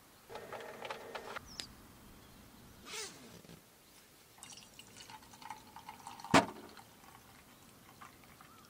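A few small handling sounds in a small space, with one sharp knock about two-thirds of the way through, the loudest sound.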